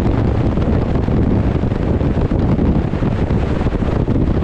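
Wind buffeting the microphone on a ship at sea: a loud, steady low rumble.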